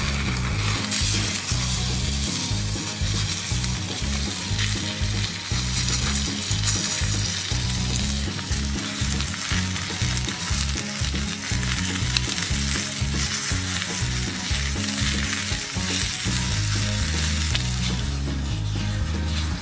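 Steak searing in a black pan over an open wood fire, sizzling steadily.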